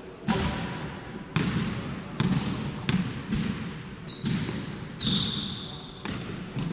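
Basketball being dribbled on the court floor, sharp bounces about once a second, with a brief high squeak about five seconds in.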